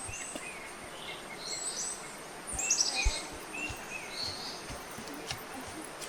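Several birds calling: short repeated chirps and whistles, with a quick falling run of notes about two and a half seconds in. A few soft low thumps sound underneath.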